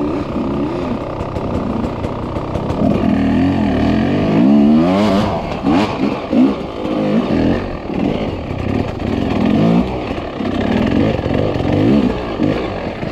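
Off-road dirt bike engine being ridden hard, the throttle opened and closed again and again so the engine note rises and falls about once a second through the second half.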